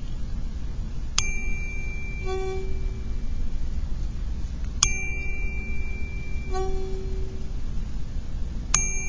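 Metal tuning fork struck three times, each strike giving a bright ring that fades within about a second. After each of the first two strikes, a short buzzing hum follows about a second later as the vibrating prongs are dipped into a dish of water.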